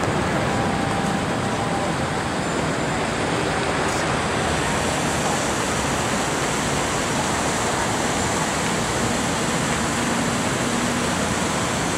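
Steady roar of road traffic: an even wash of noise with no distinct events.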